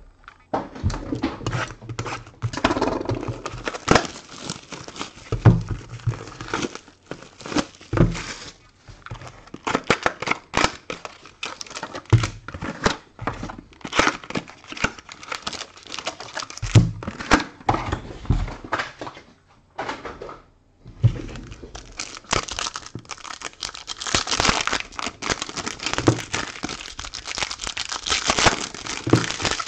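Foil trading-card packs and box wrapping crinkling and tearing as 2017-18 Topps Premier Platinum packs are opened by hand, in irregular crackly bursts with a brief pause about two-thirds of the way through.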